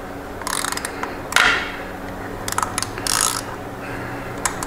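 Hand ratchet clicking in several short bursts as it is worked on an oil filter wrench fitted over the oil filter of a Harley-Davidson Twin Cam Softail, taking up slack before the filter is broken loose.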